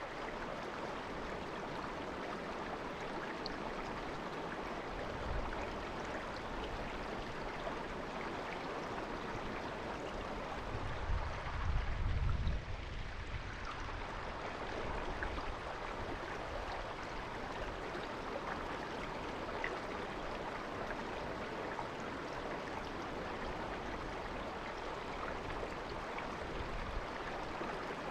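River water babbling steadily over stones in a shallow stretch of the Naka River. About halfway through there is a brief low rumble, the loudest moment.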